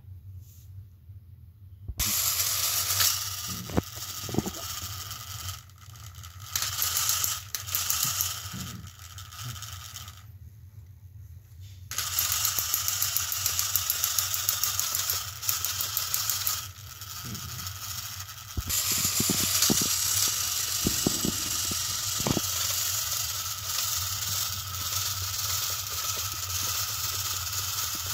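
Battery-powered Thomas & Friends toy engines running on plastic track: small motors and gearboxes whirring with a rattle of wheels, starting about two seconds in and stopping briefly near the middle.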